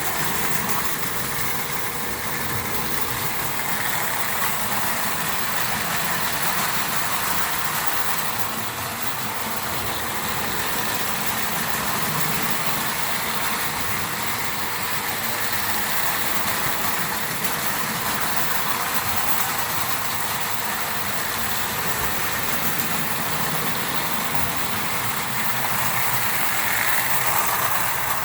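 Three vintage Marx Commodore Vanderbilt O-gauge toy locomotives running with their trains: the steady whir of small electric motors and the rumble of wheels on the track, with a faint steady hum.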